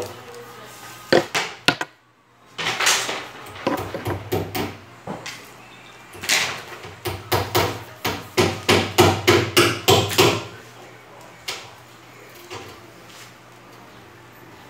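Hammering under a kitchen counter: groups of sharp knocks, with a quick run of blows about four a second a little past the middle.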